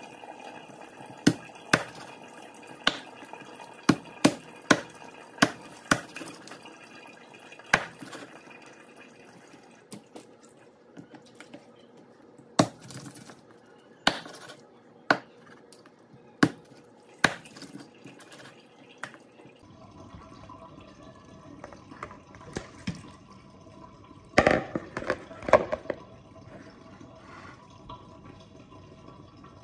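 A large kitchen knife chopping raw chicken on a wooden cutting board: sharp knocks of the blade striking the board, irregularly spaced, about a dozen over the first twenty seconds. A short flurry of louder knocks comes near the end.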